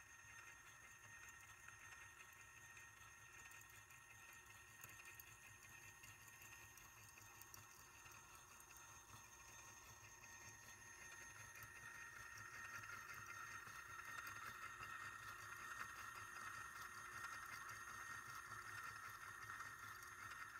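Faint steady whir of a small electric motor and belt-and-pulley mechanism in a tabletop kinetic sculpture, growing a little louder about halfway through.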